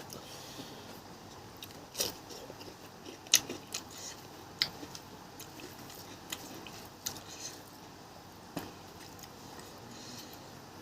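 Close-up eating sounds of someone eating fish: chewing, with a few sharp mouth clicks and smacks scattered through, the loudest about two seconds in and again about three and a half seconds in.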